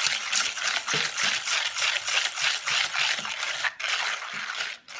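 Wire whisk beating egg yolks and sugar in a metal pot, a quick, even run of scraping and clattering strokes, several a second, that stops near the end.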